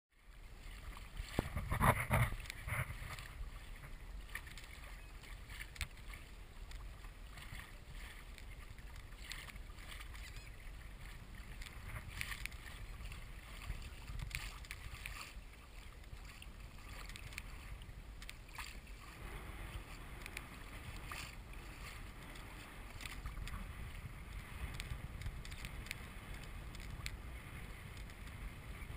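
Hobie Pro Angler 14 kayak on the water: water moving against the hull, with scattered light knocks and clicks over a low wind rumble on the microphone. There is a louder rush of sound about two seconds in.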